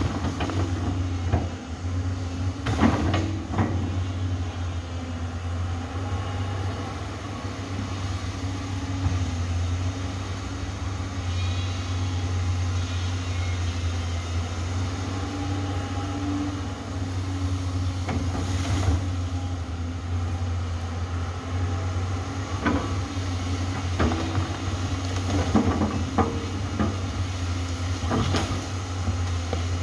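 Amphibious excavator's diesel engine running steadily, with occasional sharp knocks and clanks from the working machine.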